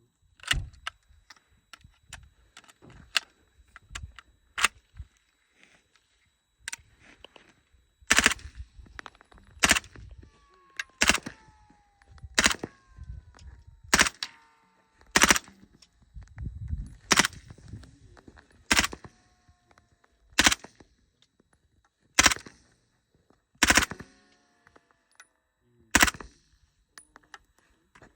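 Suppressed airsoft MP5K replica firing single shots, a sharp crack about every one and a half seconds for the last twenty seconds or so, with a few quieter clicks in the first five seconds. Faint falling whistles trail after some of the shots.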